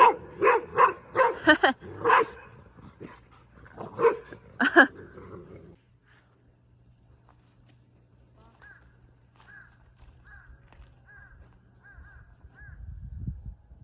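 A dog barking, a quick run of short barks in the first two seconds and two more around four seconds in. After that the barking stops and a small bird chirps faintly and evenly, about two chirps a second, over a low steady hum.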